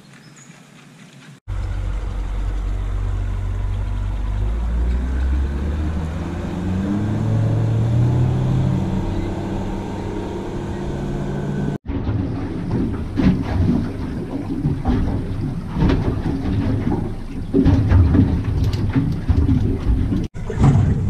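An outboard motor on a Bar Crusher plate-aluminium boat, its pitch rising steadily for several seconds as the boat speeds up, then holding. Later comes a rougher stretch of engine and water noise with irregular knocks as the boat runs across the lake.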